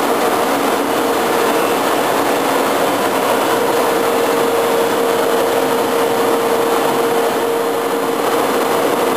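Steady machine-shop background noise: a constant mechanical hum with one steady mid-pitched tone, unchanging throughout.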